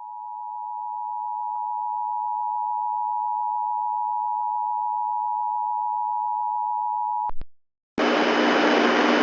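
Emergency Alert System attention signal: a steady two-tone alarm near 1 kHz that fades in and holds for about seven seconds, then cuts off with two short clicks. After a moment's gap a loud hiss of static starts near the end.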